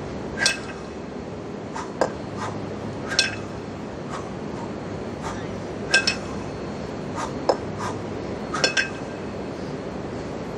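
Two 20 kg kettlebells clinking together with a short metallic ring about every two and a half seconds, twice as a quick double clink, with a couple of duller knocks in between, as they are cleaned to the chest and jerked overhead. A steady background noise runs underneath.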